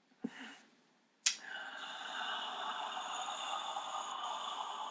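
A short breath, then, from a little over a second in, a long steady breathy exhale.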